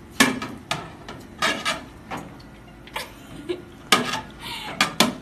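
Turkish ice cream vendor's long metal paddle clanking against the ice cream tub, a string of sharp metallic strikes at an uneven pace, some ringing briefly.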